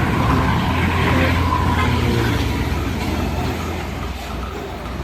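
Toy tow truck being played with: a steady vehicle-like rumble that slowly fades.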